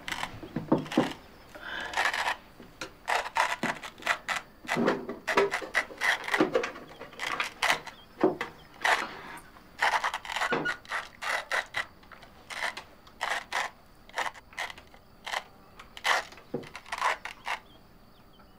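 Cutlery and crockery being handled at a breakfast table: a busy run of short, irregular clicks, taps and scrapes, which dies away shortly before the end.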